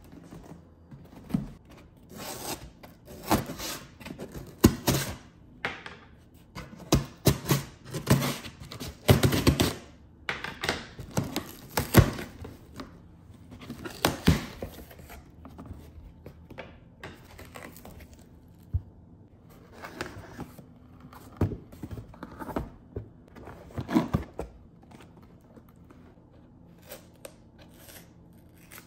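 Cardboard shipping boxes being opened by hand: tape torn and peeled off, with cardboard scraping, rustling and knocking against the desk in irregular bursts. The sounds come thickly at first and thin out to a few faint clicks toward the end.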